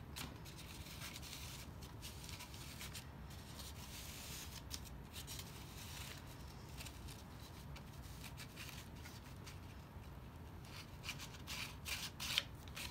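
Faint scratching of a marker tip on paper as a circle is drawn around a seam gauge pivoting on a pin, with paper rustling. A cluster of sharp clicks and taps near the end as the paper and metal seam gauge are handled.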